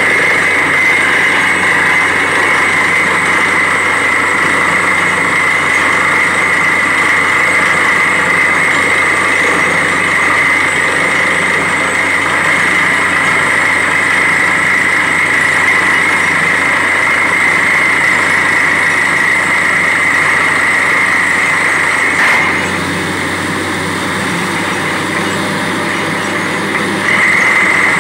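Truck-mounted borewell drilling rig running steadily, its engine and machinery giving a continuous loud noise with a high steady whine on top. About 22 seconds in the whine stops and the overall sound drops a little, then the whine comes back near the end.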